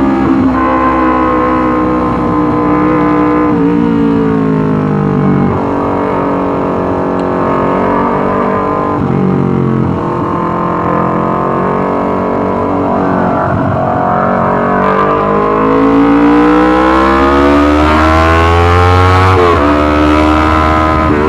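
Yamaha R25's parallel-twin engine through a loud Racefit Slash aftermarket exhaust, revving. The pitch climbs and falls several times, and a long climb ends in a sudden drop near the end.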